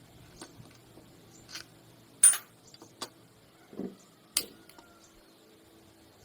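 A series of about six sharp metallic clinks and knocks, the loudest a little over two seconds in, as tools and metal parts are handled during motorcycle repair work.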